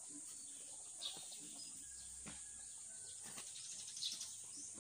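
Faint outdoor ambience: scattered bird chirps over a steady high hiss of insects, with a few soft taps.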